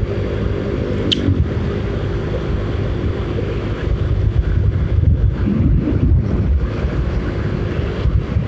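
Wind buffeting the microphone of a moving motorcycle rider, a steady low rumble with the motorcycle's engine humming underneath.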